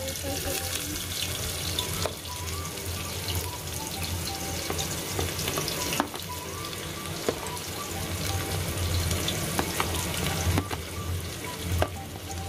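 Chopped onions sizzling in hot oil in a pressure cooker as they are tipped in, a steady hiss, with a steel spoon scraping them off a plate and tapping sharply a few times.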